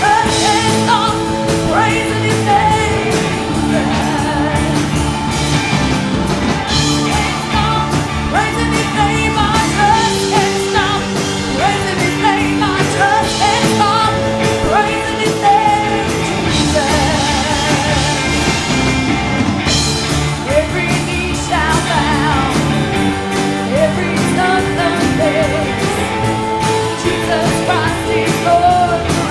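Live church music: singing over a band, with sustained chords and a steady drum beat.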